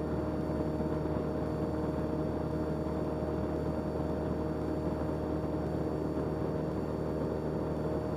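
Cessna 172's piston engine and propeller running steadily at high power in the climb-out after a touch-and-go, heard from inside the cockpit as an even drone with a steady hum.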